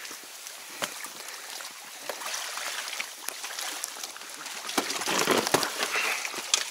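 Water sloshing and reeds rustling as a wet German wirehaired pointer moves about in a rubber inflatable boat among the reeds, with small knocks and scrapes. The rustling and splashing grow louder about five seconds in.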